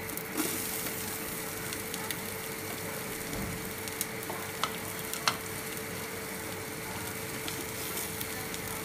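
Sliced onions dropped into hot oil with chopped ginger, garlic and green chillies, sizzling steadily in a large metal pot, the sizzle rising just after they go in. A few light clicks sound around the middle.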